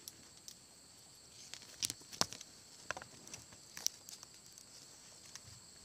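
A few sharp crackles and knocks of dry palm fronds and branches being brushed and stepped through, loudest about two seconds in and again near three and four seconds. Underneath is a steady high buzz of insects at two pitches.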